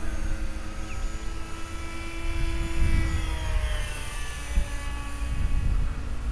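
Radio-controlled A-10 Warthog model jet's engines whining as it flies past overhead, the pitch dropping as it goes by, over a low rumble.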